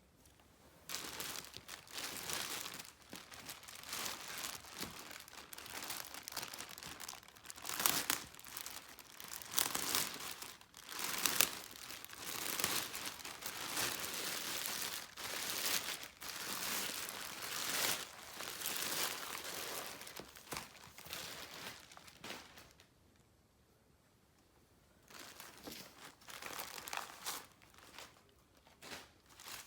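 Packaging being unwrapped and handled, crinkling and rustling continuously with sharp crackles, pausing for a couple of seconds about three-quarters of the way through before starting again.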